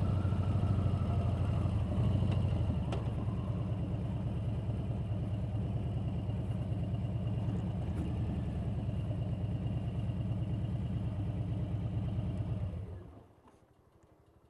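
Motorcycle engine idling with an even, steady pulse and a single click about three seconds in, then switched off about thirteen seconds in, the sound dying away to near silence.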